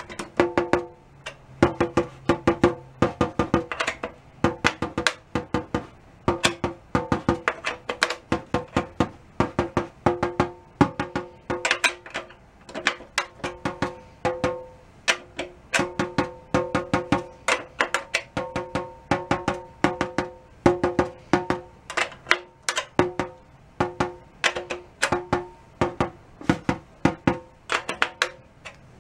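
Batter head of a 1938 Leedy Broadway Parallel snare drum tapped lightly near one tension rod after another, about three taps a second, each tap ringing with a clear pitch as the head is tuned even all round.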